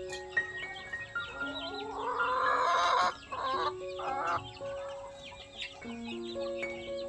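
A rooster crows once, a long call that swells up and cuts off suddenly about three seconds in, followed by two short clucking calls. Soft background music with slow held notes plays underneath.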